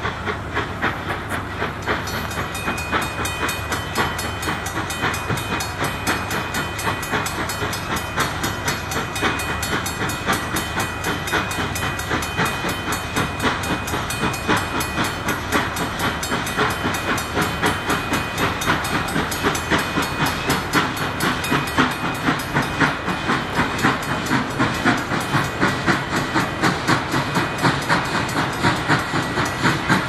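CNJ 113, a 0-6-0 anthracite-burning steam locomotive, working with a rhythmic beat over a steady hiss of steam; the beat grows louder and more even toward the end. A thin, steady high tone sounds from about two seconds in until about two-thirds of the way through.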